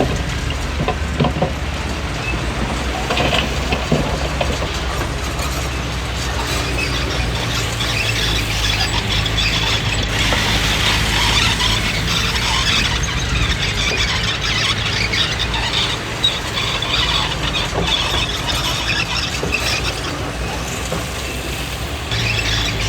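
Komatsu D20P crawler bulldozer at work: its diesel engine runs steadily while the steel tracks squeal and clank, louder through the middle stretch.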